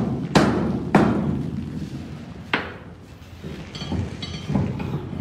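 Several sharp knocks that ring and echo inside an empty steel shipping container, loudest in the first three seconds and fainter near the end, from a worker unfastening the car's tie-downs on the container floor.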